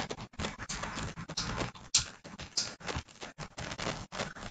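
Irregular clicking and scratchy rustling from a computer mouse and keyboard being worked at a desk, with one louder click about two seconds in.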